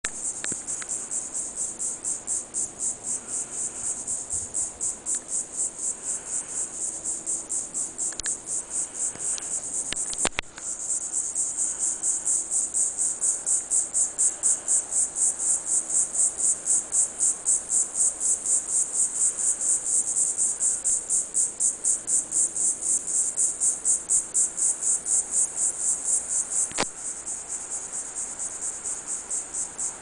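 Diceroprocta viridifascia cicadas calling: a high, steady buzzing song that pulses a few times a second, louder through the middle. Sharp clicks break in with a brief dip about ten seconds in, and another click comes near the end.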